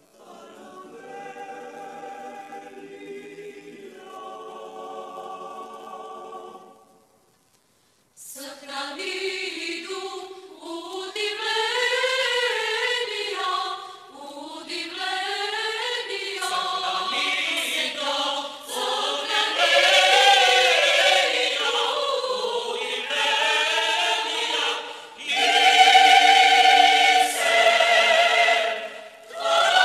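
Choir singing unaccompanied: soft held chords, a brief silence about seven seconds in, then a louder passage with gliding, ornamented melody lines.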